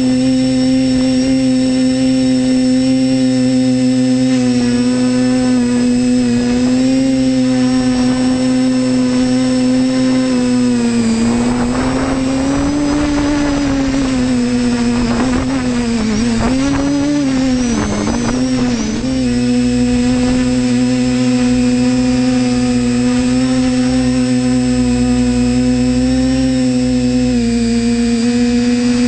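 Multirotor drone's electric motors and propellers humming, heard from the camera on board. About a third of the way in, the pitch wavers up and down for several seconds as the motor speeds change, then settles again; near the end it steps down slightly.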